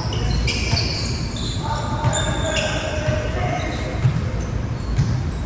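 Basketball game on an indoor court: the ball bouncing and many short, high-pitched sneaker squeaks, with players calling out.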